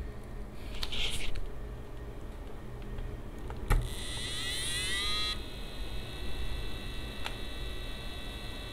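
EK AIO 360 Elite pump starting up. A sharp click as its power is connected a little over three seconds in, then a rising whine as the pump spins up, settling into a steady high whine with a faint tick. This is the start-up whine and ticking that the owner says this pump makes when it starts, before it runs stable and quiet.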